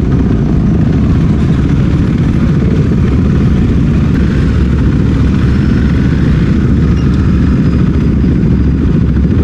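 Husqvarna Svartpilen 401's single-cylinder engine running steadily while being ridden, under a dense, steady low rumble.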